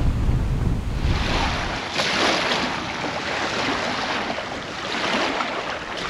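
Wind buffeting the microphone for the first couple of seconds, then small lake waves washing onto a sandy shore, swelling and ebbing every few seconds.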